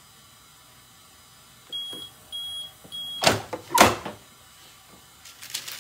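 Heat press timer beeping three times, high and evenly spaced, as the 20-second press cycle ends. Two loud clunks follow as the press is opened, then rustling of the transfer film and mat near the end.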